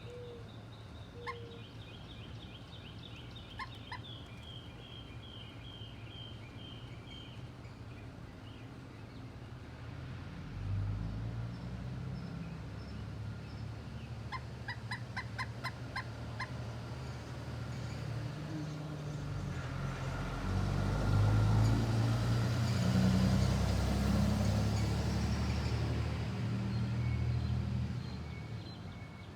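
Bird calls, a descending series of chirps in the first several seconds, and a quick run of about eight sharp taps in the middle, like a woodpecker pecking at wood. A low rumble swells through the second half and is the loudest sound, fading near the end.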